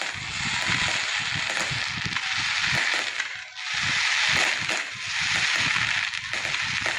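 Fireworks going off continuously: a dense crackling with many quick pops, easing for a moment about three and a half seconds in before building again.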